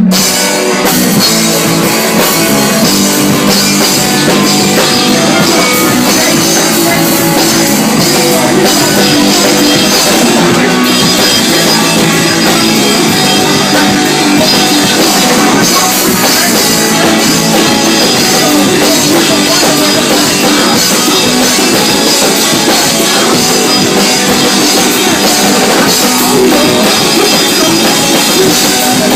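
Live band playing a loud, steady instrumental rock passage, with electric guitar over a full drum kit and no vocals.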